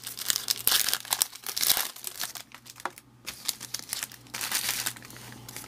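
Foil wrapper of a Topps baseball card pack being crinkled and torn open by hand, in irregular crackling bursts with a short lull about halfway.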